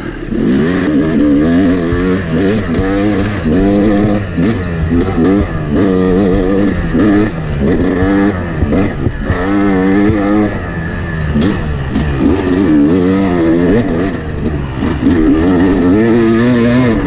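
Yamaha YZ250X two-stroke dirt bike engine revving up and down continuously under hard riding, its pitch rising and falling every second or two as the throttle is opened and chopped.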